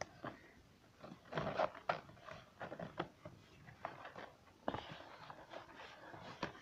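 Hands handling a hard-shell gimbal carrying case over its cardboard box: a run of small clicks, taps and scrapes in clusters, with a sharper knock about two-thirds of the way in.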